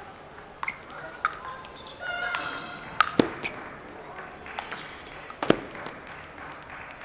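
Table tennis rally played with sandpaper-faced bats: the ball clicks sharply off the bats and the table in an uneven run of pings, loudest about three seconds in and again about five and a half seconds in.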